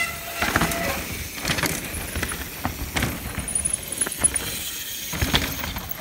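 Mountain bike rolling down a sandstone rock drop and onto the dirt trail: tyres crunching over rock and gravel, with scattered knocks and chain-and-frame rattles. A brief squeal in the first second, typical of disc brakes dragging on the steep roll-in.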